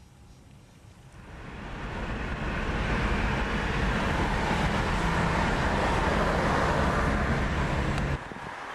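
Motor vehicle noise, an engine hum under rushing road noise, building up over about two seconds and holding loud before cutting off abruptly near the end.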